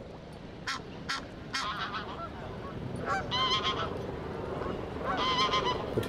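Geese honking, in two main bouts of repeated calls about three and five seconds in, with a few sharp clicks in the first two seconds over a steady low background noise.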